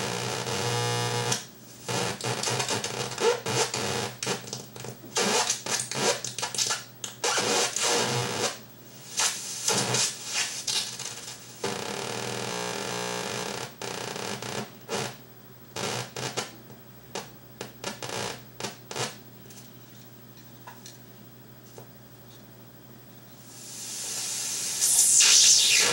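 Battery-powered DIY noise generator circuit heard through its output cable: crackling, stuttering electronic noise that cuts in and out in irregular bursts over a low hum. It drops to a faint crackle for a few seconds, then swells into a loud hiss near the end.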